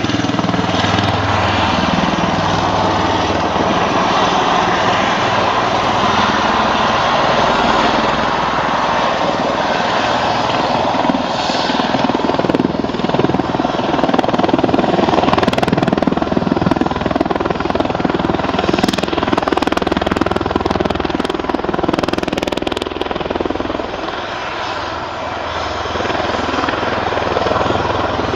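Helicopter flying a display, its rotor and turbine engine making a loud, continuous noise that dips briefly near the end.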